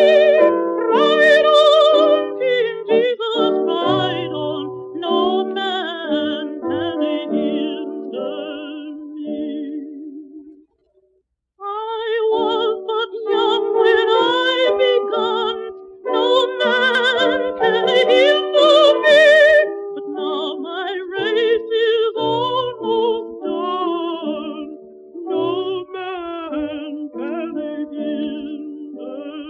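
Music with a solo singer holding wavering notes over accompaniment; it breaks off into a second of silence about ten seconds in, then starts again.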